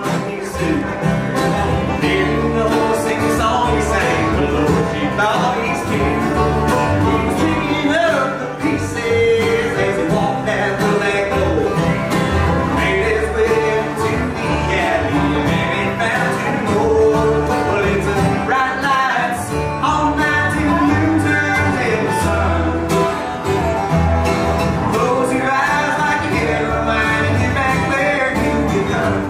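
Bluegrass band playing live: fiddle, banjo, acoustic guitar, mandolin and upright bass, with singing over the instruments.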